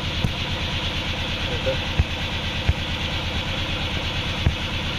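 Vehicle engine idling steadily, with a few sharp knocks over it.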